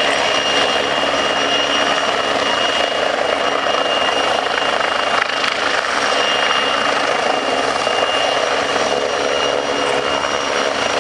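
Hovering turbine helicopters: steady rotor and engine noise with a constant high turbine whine on top.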